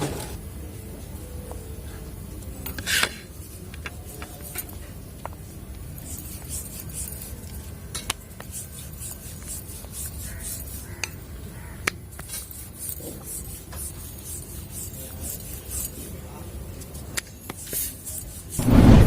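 Soft rubbing of stiff maida dough being worked on a board, with scattered light clicks and knocks, and a louder knock near the end.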